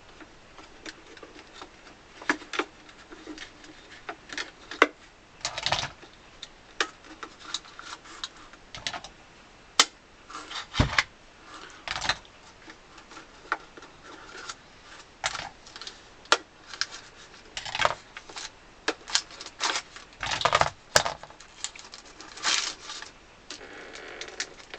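Small workshop clamps being loosened and taken off, with irregular clicks, clinks and knocks as they are handled and set down.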